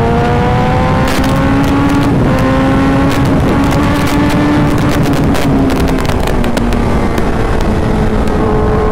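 Honda Fireblade's inline-four engine running under way, its note climbing, easing back around the middle and climbing again as the throttle is worked, over heavy wind rush on the microphone.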